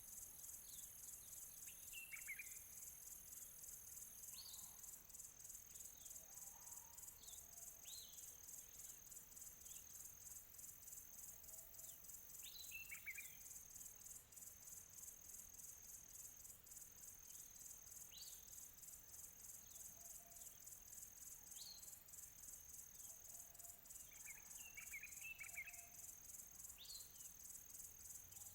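Faint outdoor ambience: a steady, high-pitched, finely pulsing chorus of insects, with birds chirping in short, quick, downward-sliding notes every few seconds. There are small clusters of chirps about two, thirteen and twenty-five seconds in.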